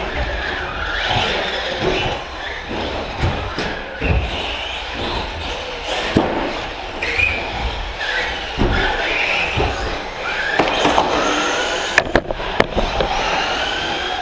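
Electric 1/10-scale short-course RC trucks, among them a Team Associated SC10 with a 5.5-turn brushless motor, running laps: motor whine rising and falling as they accelerate and brake, with knocks from tyres and chassis hitting the track and a few sharp clacks near the end.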